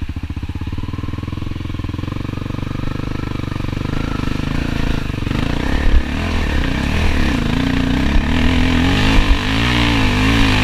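Enduro dirt bike engine running on a trail. For the first few seconds the revs are fairly steady. From about halfway the revs rise and fall again and again as the bike climbs a slope, with a thump about six seconds in.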